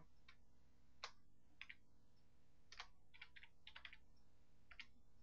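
Faint key presses on a computer keyboard: about a dozen scattered taps, some in quick runs of two or three, as a number is typed in.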